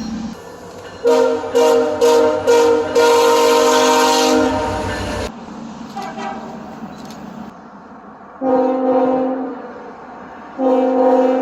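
Train air horn sounding a chord of several notes: four short blasts, then a longer one that cuts off suddenly about five seconds in. Two more blasts of about a second each follow later.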